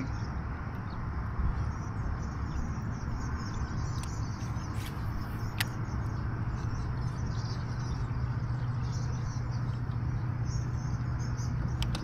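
Steady low hum of an electric kayak motor driving the kayak along, over a rushing hiss of wind and water, with a few faint bird chirps and two sharp clicks about five seconds in.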